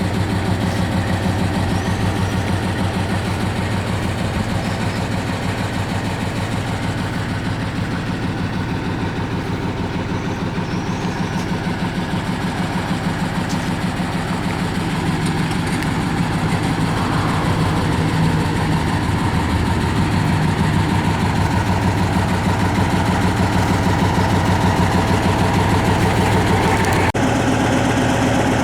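An engine idling steadily with an even throb, growing a little louder through the second half. Its note changes abruptly near the end.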